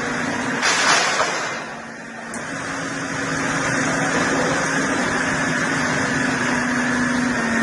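A heavy machine's engine running steadily with a constant hum, a brief louder burst about a second in, then a short dip in level before it settles back to steady running.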